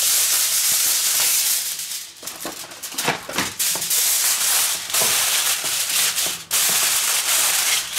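Aluminium kitchen foil crinkling and rustling as a sheet is handled and pressed loosely down over a baking dish, with a quieter moment about two seconds in.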